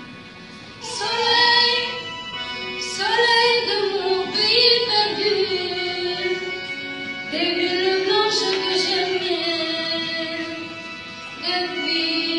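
A female voice singing over music, in several phrases with long held notes.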